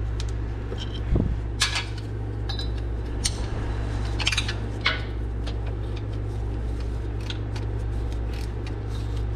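Steady low hum of two shop air conditioners, with a few light metallic clicks and clinks in the first half as a wrench works a 13 mm bolt loose from a bracket under the vehicle.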